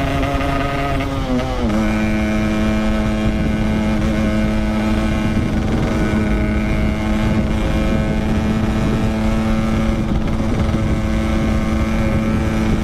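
Yamaha RX-King 135cc two-stroke single-cylinder motorcycle engine running under way at steady revs. Its pitch steps down slightly about a second and a half in, then holds steady.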